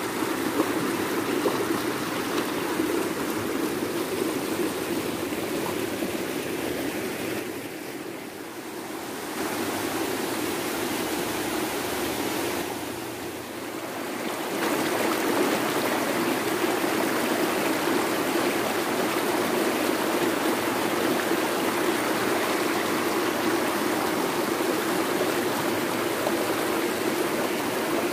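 Shallow rocky river rushing and splashing over boulders in rapids: a steady noise of white water, briefly quieter twice near the middle.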